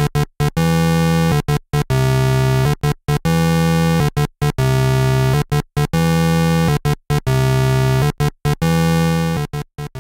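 Electronic synthesizer music: loud, buzzy held notes broken by many short silent gaps in a choppy, uneven rhythm.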